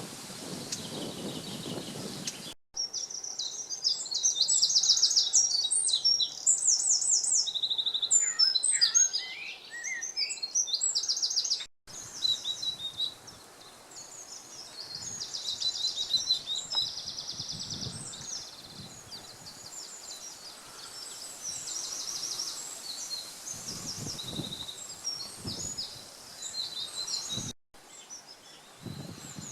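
Woodland songbirds singing: a dense run of high chirps and trills, loudest in the first third. A rushing, wind-like noise fills the first two seconds, and a few low thumps come in the second half.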